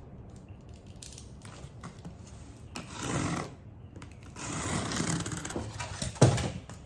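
A parcel being opened by hand: two stretches of scraping and rustling packaging, then a sharp knock about six seconds in.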